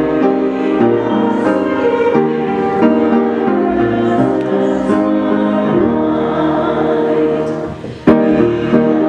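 Hymn sung by many voices with piano accompaniment, moving through sustained chords. The music dips briefly just before 8 seconds in, followed by a sharp knock as it comes back in.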